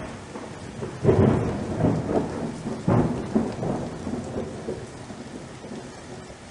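Thunderstorm sound effect: rolling thunder over steady rain, with a loud clap about a second in and another near three seconds, the rumble dying away toward the end.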